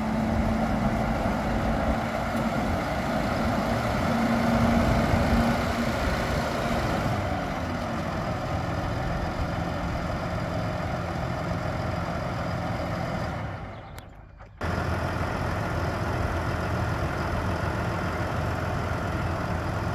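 Deutz-Fahr 6215 tractor's six-cylinder diesel engine running steadily, a little louder around five seconds in. It drops away briefly about fourteen seconds in, then carries on at a steady idle.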